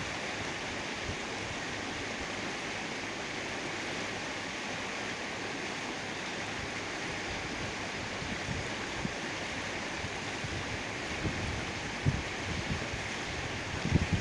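A steady, even rushing hiss, with low buffeting thumps of wind on the microphone that grow over the last few seconds.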